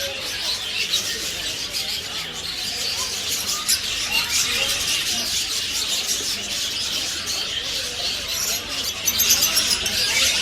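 Dense chorus of many small birds chirping and twittering at once, a continuous high-pitched chatter that grows a little louder near the end.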